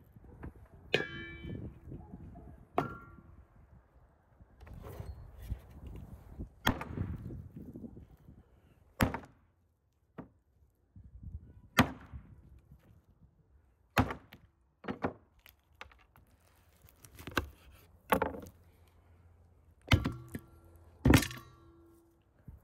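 Cleaver chopping through raw beef legs on a wooden board: about ten heavy, irregularly spaced thunks, several of them with a short metallic ring.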